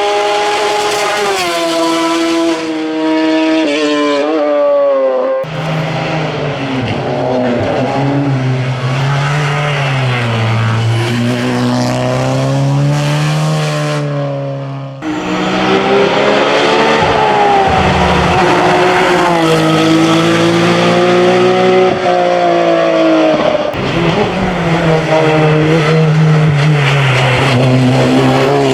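Race car engines on a hillclimb, revving up and dropping in pitch again and again through gear changes and corners. The sound changes abruptly twice, about five seconds in and again about fifteen seconds in, as one car gives way to another.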